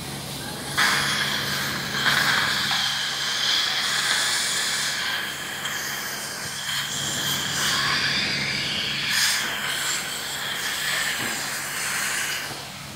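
Dental saliva ejector sucking air and saliva from a child's mouth: a steady hiss that starts about a second in and stops near the end, over a steady low hum.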